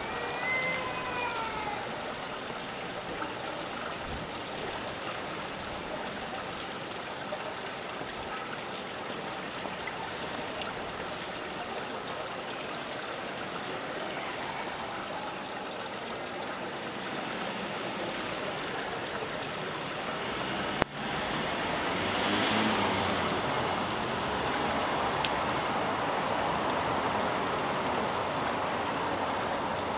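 Steady rushing background noise like running water, with a brief falling call near the start. About two-thirds of the way through there is a sharp click, after which the noise swells louder.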